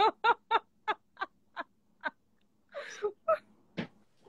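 A woman laughing: a run of short "ha" pulses that slow down and fade over the first two seconds, then a breath and a couple of brief chuckles near the end.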